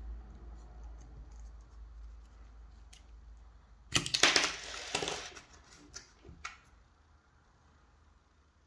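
A coin twisting open the plastic battery cover of a Samsung Galaxy SmartTag2: a burst of sharp scraping and clicking, about a second long, starting about four seconds in. It is followed by two small clicks as the cover and CR2032 coin cell come free.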